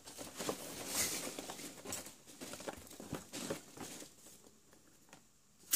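A hand rummaging through foam packing peanuts in a cardboard box: an irregular rustling of loose foam pieces, busiest in the first couple of seconds and dying down by about five seconds in, with a single sharp click at the very end.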